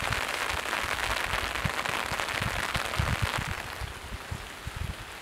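Steady crackling patter of light rain, with low rumbling gusts of wind on the microphone; the patter eases about four seconds in.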